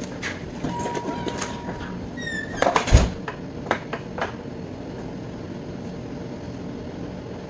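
Black disposable gloves being pulled on with small snaps and rustles over a steady kitchen ventilation hum. About three seconds in comes a loud knock and crinkle as the aluminium foil pan of filling is handled, followed by a few softer clicks.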